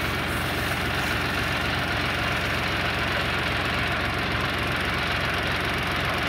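John Deere 5045D tractor's three-cylinder diesel engine idling steadily.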